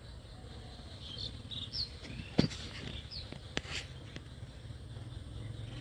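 Outdoor ambience under a low steady hum, with a few short high chirps in the first half and two sharp knocks about two and a half and three and a half seconds in, the first the loudest.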